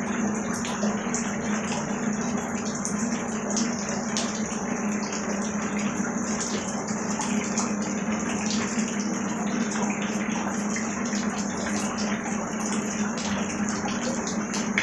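Heavy rain falling onto standing water: a dense, steady splashing of drops with many small ticks, over a steady low hum.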